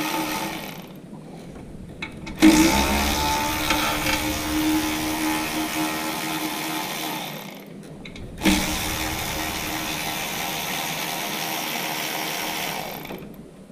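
A handheld power tool's motor running at a steady pitch in two long runs of about five seconds each. Each run starts abruptly with a quick spin-up, and there are short pauses between runs.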